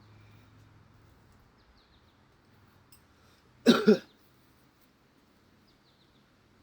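A man coughs twice in quick succession, about three and a half seconds in, with faint bird chirps in the background.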